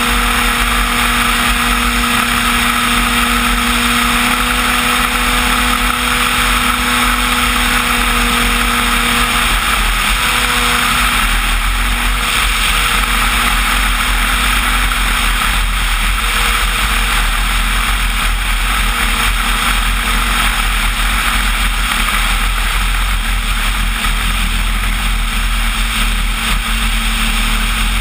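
Onboard sound of a large electric RC floatplane in flight: the motor and propeller give a steady hum over loud rushing airflow on the wing-mounted camera. The propeller hum weakens about ten seconds in.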